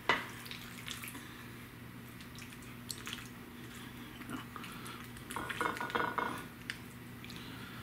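A metal spoon scooping macaroni and cheese from a stainless steel pot onto a plate. There is a sharp clink of metal on the pot just at the start, then soft wet scraping and light taps, busiest about two-thirds of the way through. A faint steady hum runs underneath.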